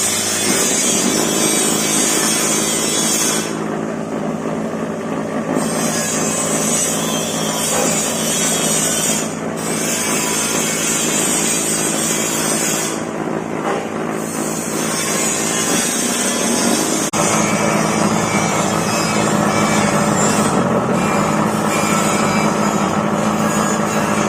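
Small water hyacinth chopper-grinder machine running, its motor giving a steady hum under a harsh whirring hiss from the chopping blades. The hiss briefly drops away twice, and the hum shifts a little about two-thirds of the way through.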